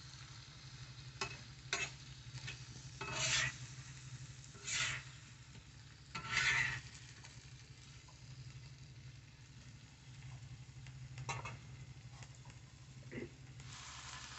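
Metal spatula scraping and turning frying shrimp in a shallow black pan over a faint sizzle of hot oil: a few light clicks of the spatula on the pan and three longer scrapes in the middle.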